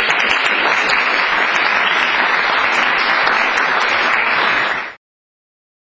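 Audience applauding in a conference hall; the clapping cuts off suddenly about five seconds in.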